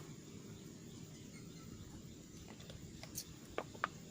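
Quiet outdoor background with a low steady hum, broken by a sharp click at the start and a few short clicks a little over three seconds in.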